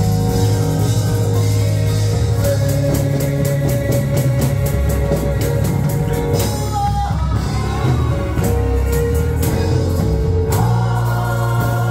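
Live gospel praise music: singing over a band with bass and percussion hits.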